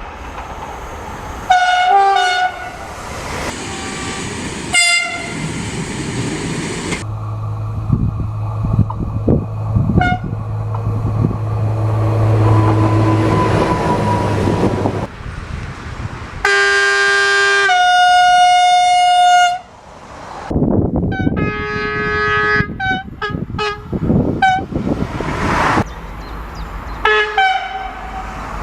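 A series of train horns, several trains one after another. There are short toots, then one long two-tone blast that goes from a low note to a higher one, then a quick string of short toots. Between the blasts, trains run with a steady low hum.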